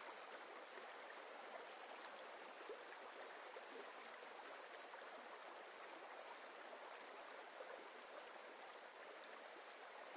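A river running over rocks and small rapids, heard as a faint, steady rush of water.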